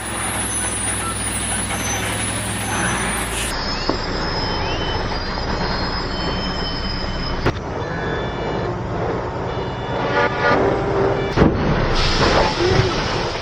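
Heavy truck engines running, in a series of short clips cut together, so the sound changes abruptly about three times.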